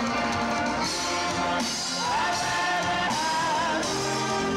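A congregation singing a gospel song together, accompanied by a church band with piano. Voices hold long, wavering notes from about two seconds in.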